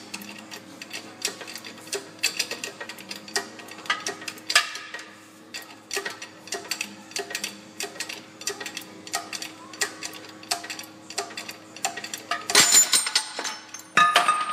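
Hydraulic shop press forcing a Ford Explorer rear wheel hub out of its old inner bearing race, which is held in a bearing splitter: irregular sharp clicks and ticks over a steady hum while the press works. About twelve and a half seconds in comes a loud metallic clatter as the race lets go and the hub comes free, and a second clank a moment later.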